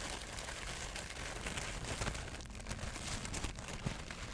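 Crinkly material being crumpled and rustled: a dense, continuous crackle with many small snaps.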